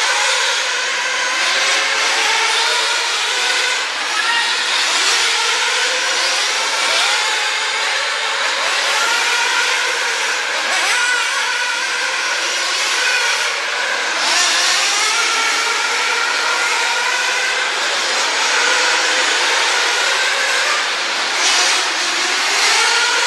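A pack of radio-controlled off-road racing cars running together, their small motors whining and rising and falling in pitch as they accelerate and brake, several overlapping at once.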